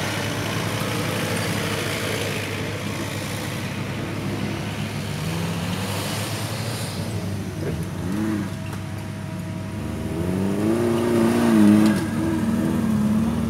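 Off-road 4x4 engines running under load on a dirt climb, the revs rising and falling once about eight seconds in and again a couple of times near the end, loudest as a vehicle comes up close.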